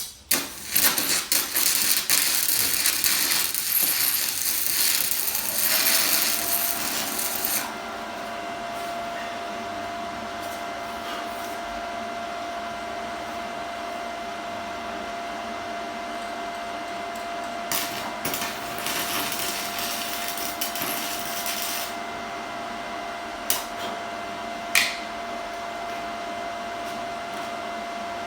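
Stick welding with 6010 rod on a DC welder: the arc crackles and hisses for about the first seven and a half seconds and again for about four seconds past the middle. Between and after the runs a steady machine hum with a held tone goes on, and two sharp knocks come near the end.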